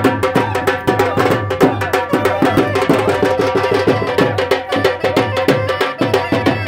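Punjabi wedding music: a dhol drum beating a fast, even bhangra rhythm over a steady held melody.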